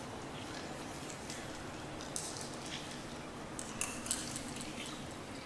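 Small crystal stones jiggled in the hands, clicking and clinking lightly against each other a few times over a steady background hiss.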